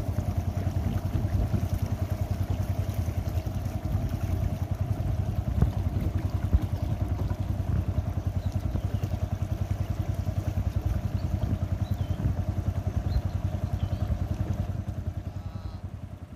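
A small boat's engine running steadily under way, a low, pulsing drone that drops in level near the end.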